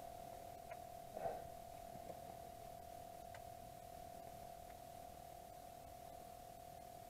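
Faint steady electronic hum held at one pitch, with a few light clicks and a short soft rustle just over a second in.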